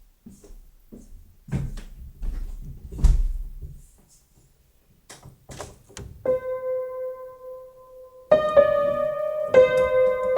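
A few scattered knocks and clicks, the loudest a low thump about three seconds in, then piano-like keyboard notes: one held note from about six seconds, joined by several notes and chords about two seconds later.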